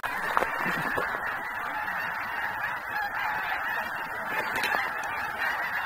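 A huge flock of snow geese calling, a dense, steady din of many overlapping honks.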